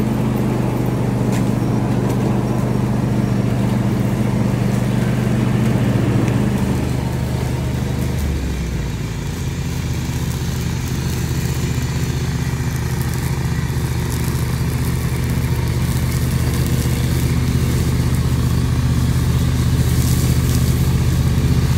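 Small engine of a DR EX675 walk-behind trimmer mower running steadily as it clears brush. Its note drops a little about eight seconds in, then holds.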